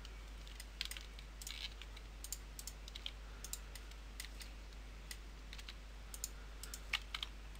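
Irregular clicks of a computer mouse's buttons and keyboard keys, a few each second, over a steady low electrical hum.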